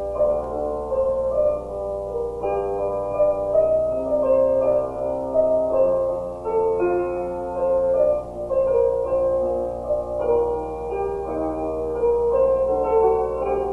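Piano music from a film score: a slow melody of held notes over a soft accompaniment.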